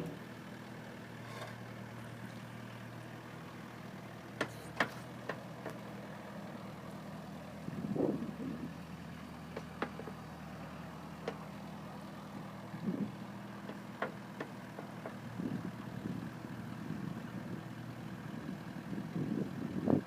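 Wacker Neuson EZ53 mini excavator's diesel engine idling steadily, with scattered sharp clicks and a few low swells.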